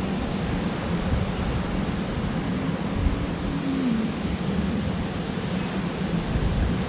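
Small birds chirping, a scatter of short high calls throughout, over a steady outdoor rush of noise.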